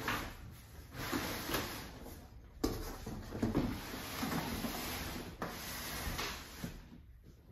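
Corrugated cardboard rubbing and scraping as the top section of a large bike shipping box is lifted up off its base, with a sharp knock about two and a half seconds in.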